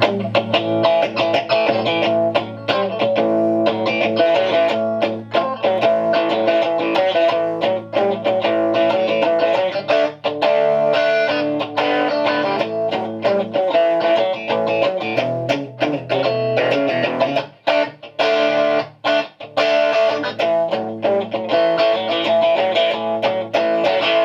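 Strat-type electric guitar played in chords through a 1971 Watkins Clubman valve amplifier, whose single EL84 valve runs in class A and drives an 8-inch Elac speaker. The sound is responsive and clean-ish, with chords ringing and being restruck in quick succession.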